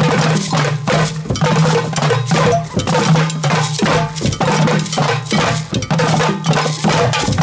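Group hand drumming on djembes and metal goblet drums (darbukas), many players striking together in a steady, fast rhythm with a bright, clanking edge.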